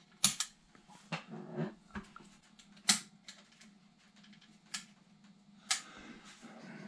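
Scattered sharp clicks and knocks, roughly one a second, from the camera and bench items being handled, over a faint steady hum.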